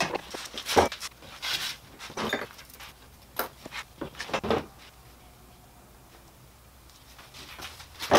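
Metal drill bits clicking and clinking as they are pulled from drilled wooden holder blocks and handled on a workbench, with small knocks of wood and a plastic bottle set down. The clatter comes in quick bursts for the first few seconds, goes quiet, then ends with a loud sharp knock.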